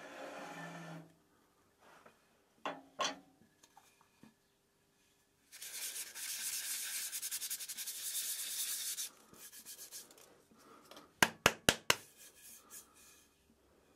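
Hands rubbing across the face of a turned oak bowl for about three and a half seconds in the middle, with a few shorter scrapes and clicks before it. Near the end comes a quick run of five sharp taps on the wood, the loudest sound here.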